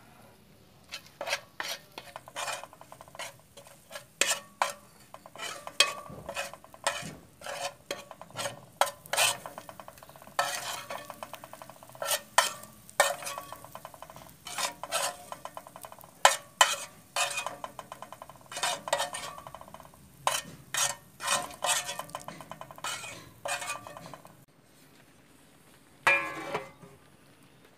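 Metal spoon stirring and scraping in a metal frying pan: quick, irregular clinks and scrapes with a metallic ring, about two a second. They stop a few seconds before the end, followed by a single ringing clank.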